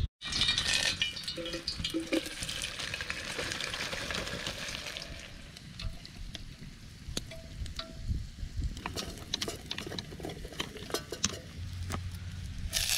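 Light metallic clinking and ringing taps over a steady hiss, with scattered clicks.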